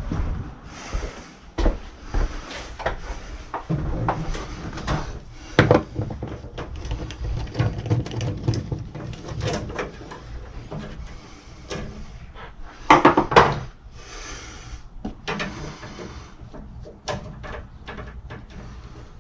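Irregular knocks, clicks and scrapes of hands and tools working on condensate pump tubing, with a louder clatter about 13 seconds in.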